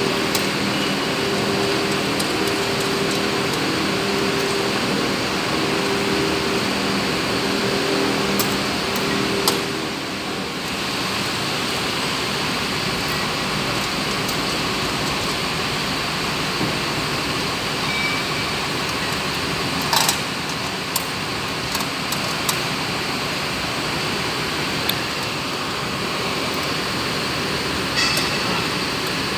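A steady, even mechanical noise, like machinery running, with a repeating low hum in the first third and a few light clicks later on.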